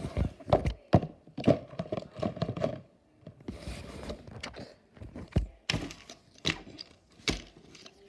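Small toys knocking and tapping on a wooden tabletop as they are moved about, a string of irregular knocks with handling rustle between them.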